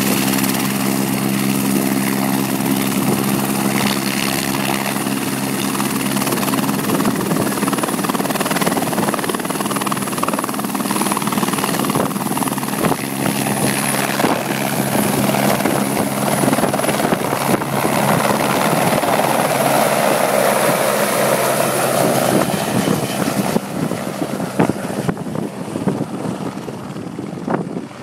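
Light helicopter's rotor and engine running as it lifts off from the pad into a hover and then flies away, the sound growing fainter over the last few seconds.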